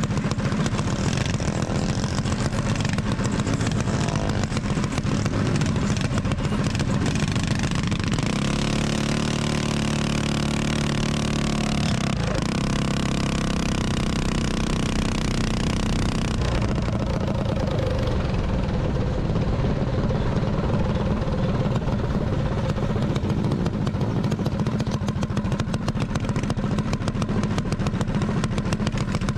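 Mini bike engines running and revving as a group rides together, the nearest engine loud and close with wind and road noise over it. A steadier engine drone stands out from about eight to twelve seconds in.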